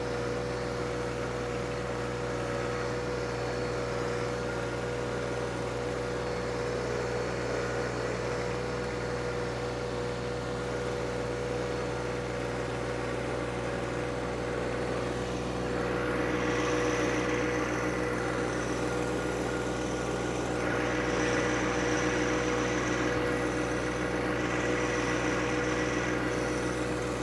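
John Deere subcompact tractor's diesel engine running steadily while it pulls a box blade across loose dirt. It grows a little louder and brighter a bit past halfway as the tractor comes closer, with a faint high whine joining in.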